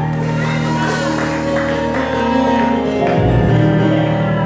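Held chords on a church keyboard, changing to a new low chord about three seconds in, with a few voices calling out over the music.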